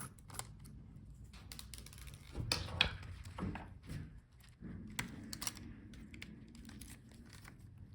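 Scattered light clicks and taps of small laptop parts being handled while the power button board is worked loose, with a few louder knocks around the middle.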